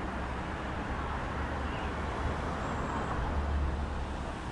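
Steady low rumble of distant urban vehicle traffic, swelling slightly about three seconds in.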